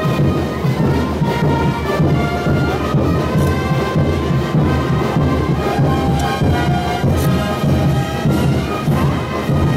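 Live brass band with drums playing a dance tune: held brass notes over a steady, pounding drum beat.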